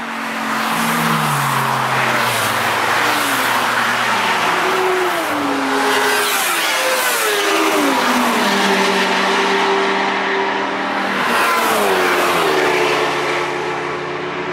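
Engines of cars and motorcycles passing at speed on a race track one after another, each engine note dropping in pitch as it goes by.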